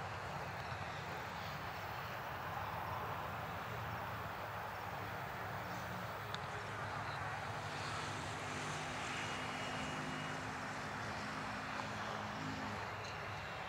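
Boeing 747-400 freighter's four jet engines at takeoff thrust during the takeoff roll: a steady, even rush with faint low engine tones, heard from a distance as the aircraft accelerates down the runway.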